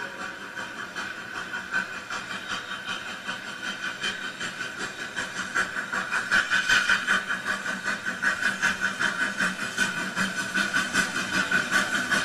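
Model narrow-gauge steam locomotive No. 486 with onboard sound, chuffing steadily at about three to four beats a second over a steady hiss. The chuffing grows louder about six seconds in as the engine comes out of the tunnel.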